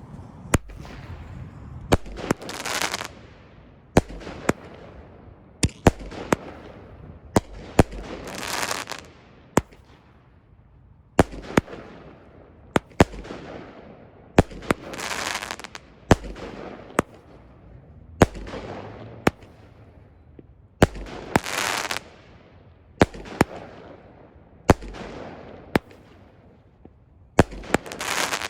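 Pyro King 200-gram consumer fireworks cake firing shot after shot. Sharp bangs come about once a second, with crackling hisses between them.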